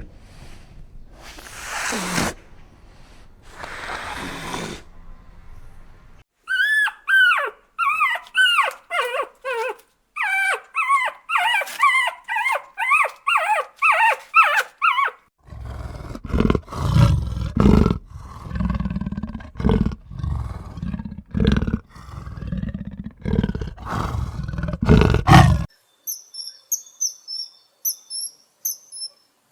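A string of different animal calls. It opens with a few breathy bursts, then a quick run of high squeaky calls, each falling in pitch. After that come rapid low pulses for about ten seconds, and near the end faint high chirps.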